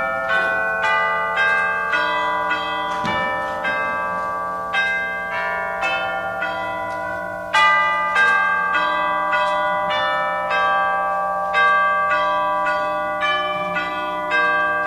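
Orchestral tubular chimes played as a melody of single struck notes, about two to three a second, each ringing on under the next, with one louder stroke about halfway through.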